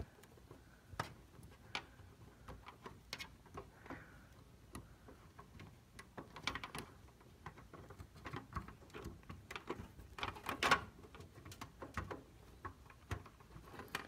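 Irregular light clicks, taps and rustling of hands working inside a desktop PC case, plugging SATA data and power cables into a hard drive in its drive bay.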